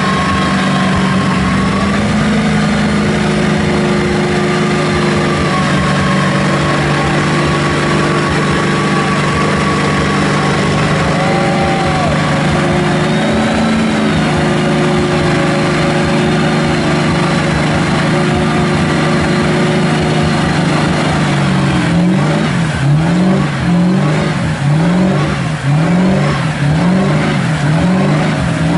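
Mega mud truck engine working hard through deep mud, held at a fairly steady high rev for most of the time, then from about two-thirds of the way in revved up and down in quick repeated surges, a little over one a second.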